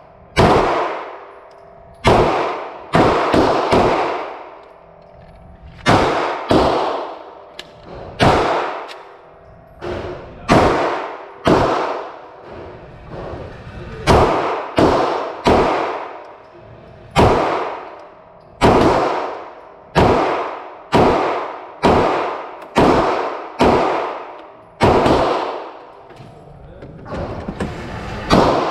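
Glock 17 9mm pistol being fired at a target, about two dozen shots, some single and some in quick strings of two to four, each shot ringing out with a short echo.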